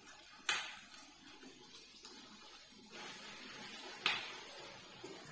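Wooden spatula stirring chilli paneer in a metal kadai, knocking sharply against the pan twice, about half a second in and about four seconds in, with a few lighter taps and a faint sizzle from the pan on the flame.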